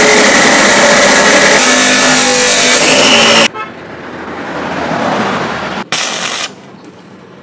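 Loud, steady hiss of a power tool working steel, cutting off abruptly about three and a half seconds in. A softer rising hiss follows, then a short loud burst about six seconds in.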